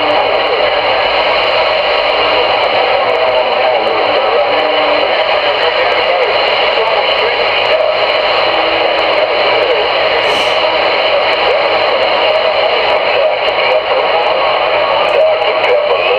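CRE 8900 CB radio receiving on channel 22: steady static with garbled, unintelligible voices and brief whistling tones mixed through it, typical of weak distant (DX) signals on the channel.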